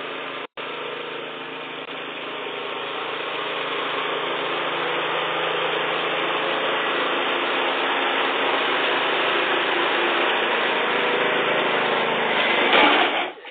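Small riding lawn mower's engine running steadily as it drives, growing louder as it comes closer and loudest near the end.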